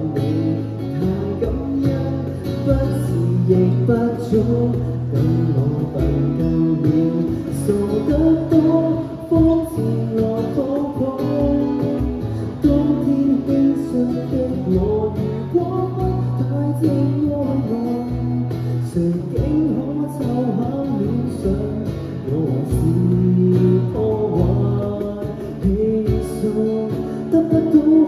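Live acoustic pop ballad: acoustic guitar strumming and picking, with cajón beats keeping time, under a singer's voice.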